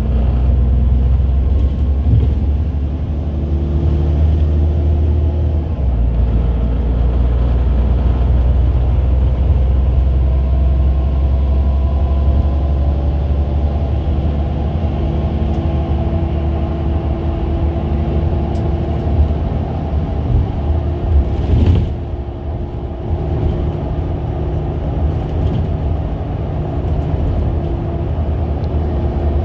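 City bus in motion, heard from inside: a steady low engine and road rumble, with the engine note rising and falling. A short knock comes about 21 seconds in, after which the rumble is a little quieter.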